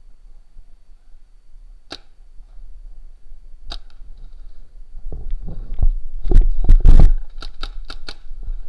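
Paintball markers firing: single sharp pops about two and four seconds in, then a rapid string of shots in the second half, the loudest ones very close.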